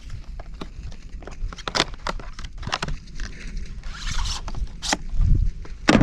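Wire crimper being worked free of its cardboard retail packaging: a run of sharp clicks and scrapes, with a short rustle about four seconds in.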